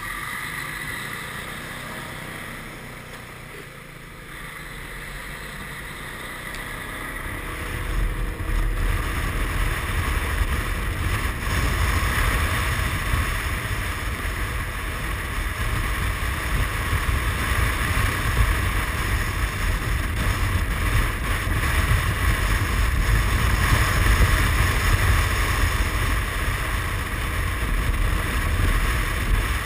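Suzuki Burgman 400 scooter's single-cylinder engine pulling away and running at road speed. Wind noise on the microphone grows as the scooter speeds up, and from about eight seconds in a low wind rumble is the loudest part.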